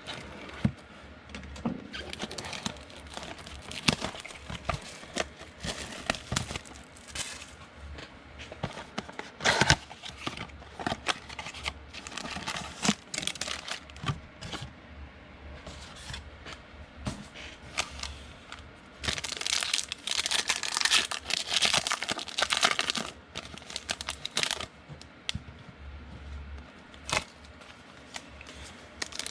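Foil trading-card pack wrappers crinkling and tearing as football card packs are opened, with scattered clicks and taps of cards being handled. The crinkling is densest and loudest about two-thirds of the way through.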